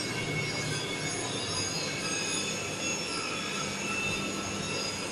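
Steel rolling mill machinery running: a steady low hum under several high-pitched, metallic tones that waver and drift, with no separate knocks or impacts.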